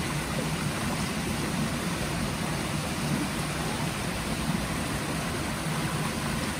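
Shallow woodland stream running over stones: a steady, even rush of water.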